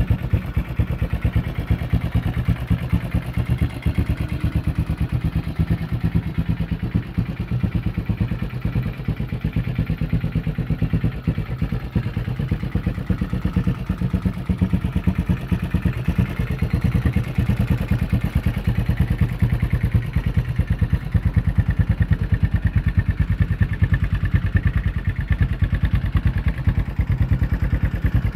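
Honda FourTrax 250cc ATV's single-cylinder four-stroke engine idling steadily with an even beat.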